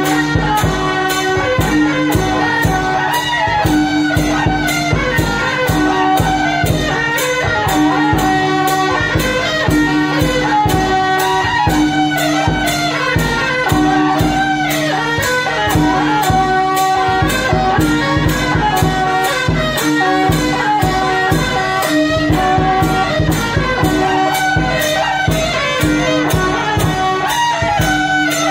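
Live Taiwanese traditional band music: a reed-horn melody over a steady drone, with drum and cymbal strokes about twice a second.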